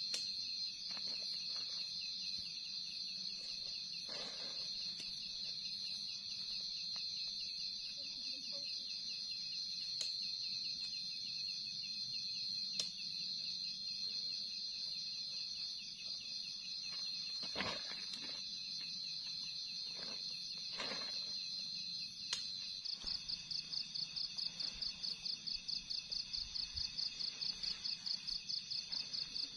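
Night insects, crickets among them, trilling in a steady high buzz. About three-quarters of the way through, the buzz gives way to a fast, even pulsing chirp. A few soft rustles are heard in the middle.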